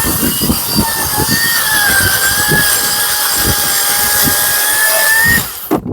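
Makita XCU04 36V (18V X2) brushless cordless chainsaw with a 16-inch bar cutting through a log, the electric motor whining steadily with the chain rasping through wood. The whine sags a little under load and climbs back as the cut finishes, then the saw stops near the end.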